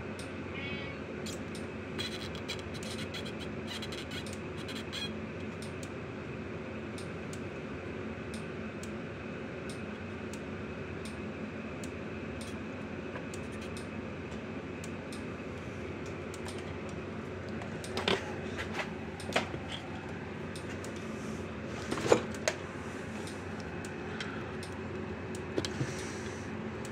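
Steady low background hum with scattered small clicks and taps of a soldering iron and pick against a circuit board as a transformer is worked loose. A few louder sharp knocks come about two-thirds of the way through.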